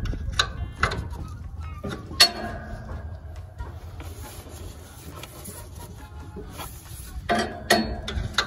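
A handful of sharp metallic clinks and knocks with brief ringing: tools and metal parts being handled during work on the tractor. The loudest comes about two seconds in, with a quieter stretch in the middle before more clinks near the end.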